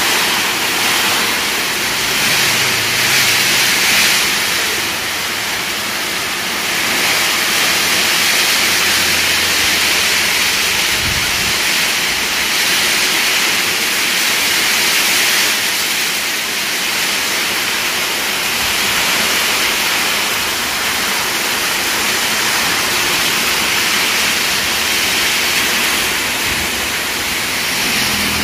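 Heavy tropical downpour: rain pouring down hard in a steady, loud hiss that swells a little now and then.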